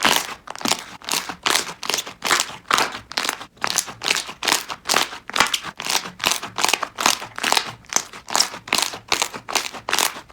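Slime being squeezed and pressed by hand, making a steady run of short crisp squishes, about three a second.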